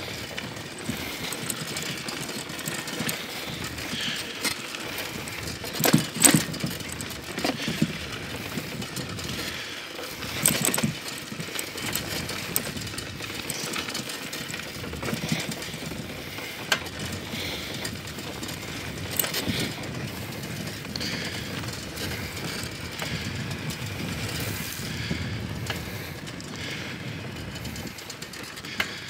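Bicycle riding over a rough dirt road: steady tyre and rattle noise, with a few louder knocks over bumps.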